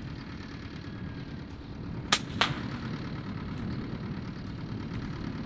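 A PCP air rifle (FX Impact) fires once about two seconds in, a sharp crack, followed about a third of a second later by a softer crack: the slug striking the bird in the tree. A steady low rumble runs underneath.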